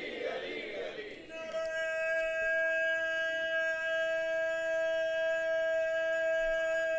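A crowd calling out together, which dies away about a second in; then a steady ringing tone with overtones that holds without wavering: a PA system feeding back through the microphone.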